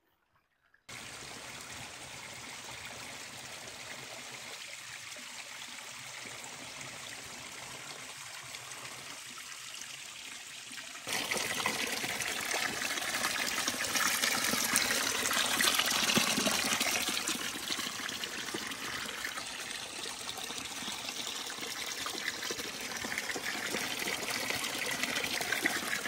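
Spring water running in a steady trickle, then, from about eleven seconds in, louder: a stream of spring water pouring out of a white pipe spout onto the rocks below.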